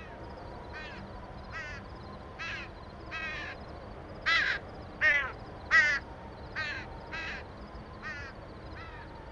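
A crow cawing over and over, about eleven harsh caws a little under a second apart, loudest in the middle and fading near the end, over a steady background hiss.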